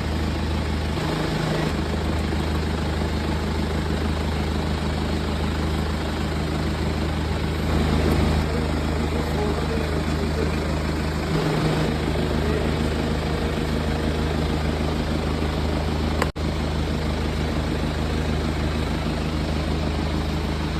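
BMW Z4 engine idling with a steady, low, even throb. The sound breaks off for an instant about sixteen seconds in.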